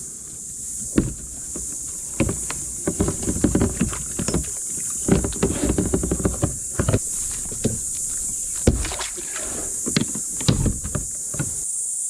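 Irregular splashing and knocking in shallow water as undersized mud crabs are released and the crab-pot gear is moved through the water, over a steady high chirring of insects. The splashing stops about half a second before the end.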